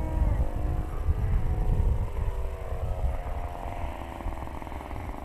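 Single-cylinder two-stroke Desert Aircraft DA-35 gas engine of a model aerobatic plane in flight, its tone fading and shifting slightly in pitch as the plane moves off, over a heavy low rumble.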